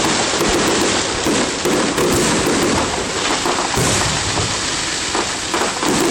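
Fireworks crackling and popping in a dense, continuous barrage, with a steady rush of wind on the phone's microphone.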